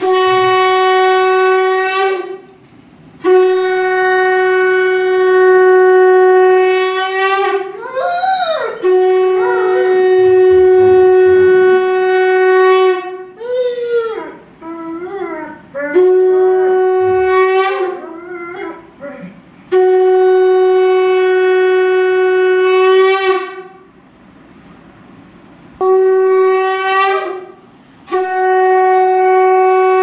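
Conch shell (shankh) blown in a series of long, steady, held blasts, about seven, with short breaks between them. In some of the breaks, most clearly about 8 seconds in and again between about 13 and 19 seconds, a Doberman howls in wavering, bending tones in reaction to the conch.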